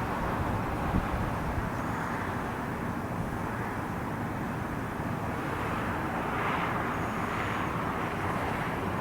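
Aircraft passing overhead, a steady rushing drone that swells slightly about six to seven seconds in.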